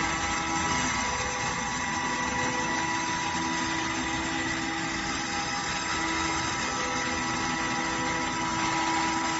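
CNC router spindle milling carbon steel plate: a steady whine with several fixed tones over continuous cutting noise.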